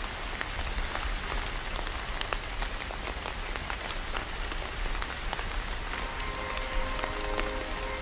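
Steady rain falling, an even hiss with scattered drops ticking. Soft held music notes come back in quietly about six seconds in.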